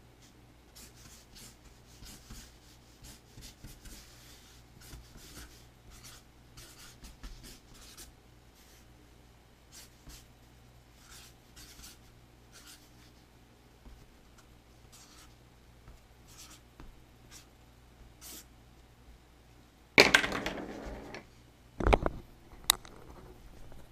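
Marker pen writing on a sheet of cardboard, a long string of short separate scratchy strokes. About twenty seconds in, a loud burst of rustling handling noise, then a sharp thump and a click.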